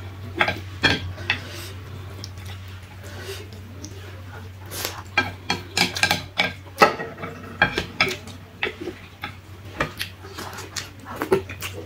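Chopsticks clicking and scraping against a plate as ramen noodles are stirred and gathered up, in short irregular taps that come thickest a few seconds in, over a steady low hum.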